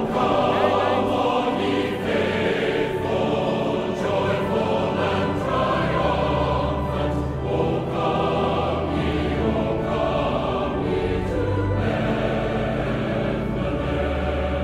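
Music: a choir singing over steady low accompaniment.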